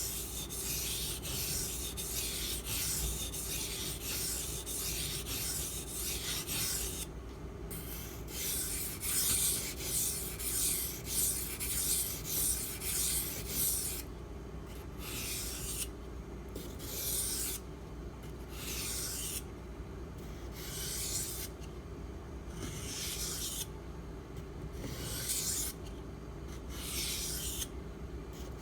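A steel knife blade, the H1 steel of a Spyderco Salt, scraping along a wet water stone in sharpening strokes. The strokes run almost continuously for the first several seconds, then come as separate strokes about one a second with short pauses between, over a steady low hum.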